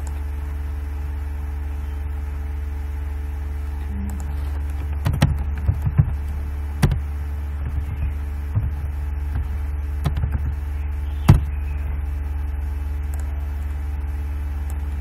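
Steady low electrical hum, with irregular clicks and taps of computer keyboard typing and mouse clicks through the middle; the loudest is a single sharp click about eleven seconds in.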